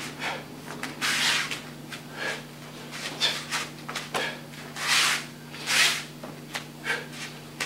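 Sharp exhalations and the swish and snap of a karate uniform as the techniques of a kata are thrown, in a string of short hissy breaths, the strongest about a second in and near five and six seconds. A steady low hum runs underneath.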